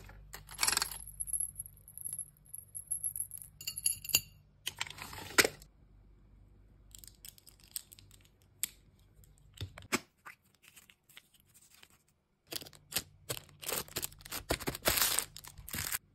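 Hands handling small plastic hair accessories and beads: scattered clicks and clatter with short bursts of rustling, and a denser stretch of rustling near the end.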